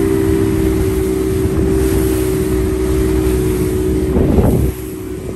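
Motorboat engine running at speed with a steady hum, mixed with wind noise on the microphone. A brief burst of sound comes about four seconds in, and then the overall noise drops noticeably.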